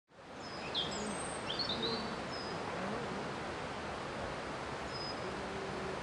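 Outdoor ambience fading in: a steady background hiss with several birds chirping, most of the short, high chirps in the first two and a half seconds.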